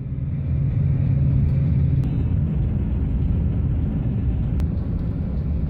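Engine and road noise inside the cabin of a moving Volkswagen car: a steady low rumble with an engine hum underneath.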